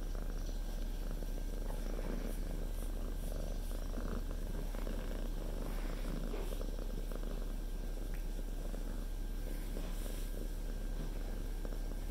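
Calico cat purring steadily, close up.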